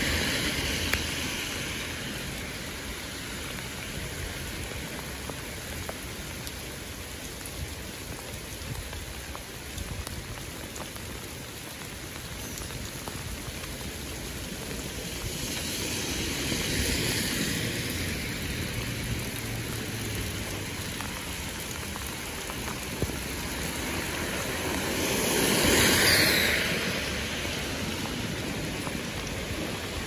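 Steady rain falling on a city street and pavement. Cars pass on the wet road with a rising and fading tyre swish through the water, once about halfway through and louder a few seconds before the end.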